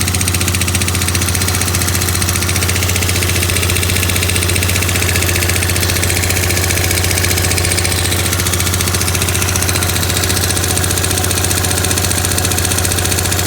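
Yamaha Grand Majesty SG15 scooter's single-cylinder four-stroke engine running steadily with a fast, even ticking over its hum. This is an abnormal noise, which the owner hopes is an exhaust leak at the AIS (air injection) pipe but fears comes from the crank or cylinder head.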